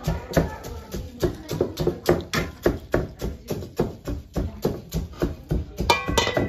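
Rhythmic pounding in a mortar, about four knocks a second: dried chillies, garlic and salt being crushed by hand for chutney.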